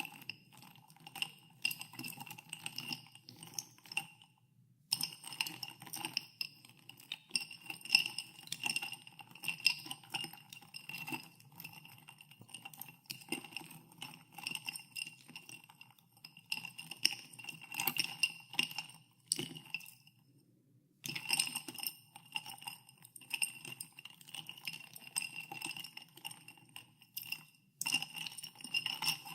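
Ice cubes stirred in a glass of soda water, clinking against the glass and each other, with the glass ringing after each knock. The stirring pauses briefly twice, about four seconds in and about twenty seconds in.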